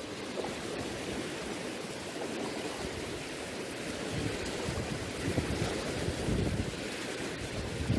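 Wind blowing over choppy lake water, with waves washing. From about four seconds in, gusts buffet the microphone in uneven low rumbles.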